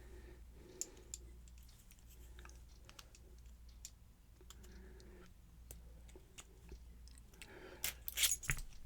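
Small metal clicks and taps of tools working on a TRIMAX padlock's opened body and plug, faint and irregular, with a louder cluster of clicks about eight seconds in.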